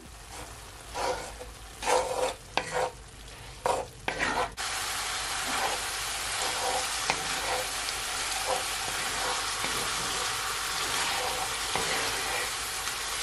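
Ground beef frying in a cast-iron skillet and being stirred with a wooden spoon: a few loud stirring strokes in the first few seconds, then from about four and a half seconds in a steady, louder sizzle with light spoon scrapes.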